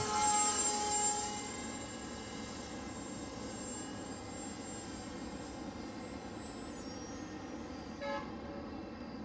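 Electric motor and propeller of an RC flying wing whining in flight, loud and falling slightly in pitch for the first second and a half, then fading to a steady, faint hum as the plane moves away.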